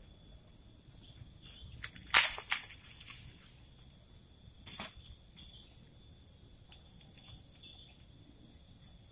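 Jungle insects trilling steadily at a high pitch, broken by a few sharp cracks or knocks: a loud one about two seconds in with smaller ones right after, and another near the middle.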